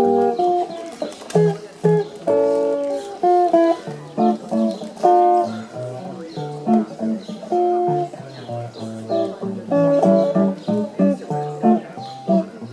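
Guitar playing an instrumental break in a swing-era jazz standard: plucked chords and single-note melody lines over a moving bass line.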